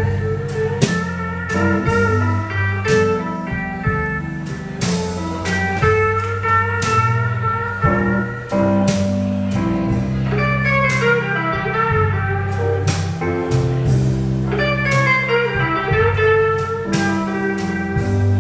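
Live blues band playing, a hollow-body electric guitar taking the lead with gliding, bending notes over sustained low bass notes and regular drum and cymbal hits.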